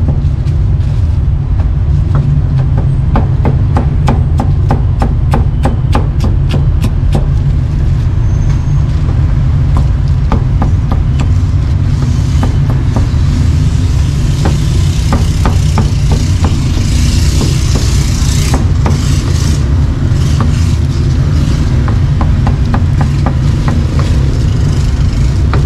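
Steady low rumble of street traffic and engines. Over it, a cleaver chops meat on a board in quick, even strokes, about three or four a second, for the first several seconds, then in more scattered knocks.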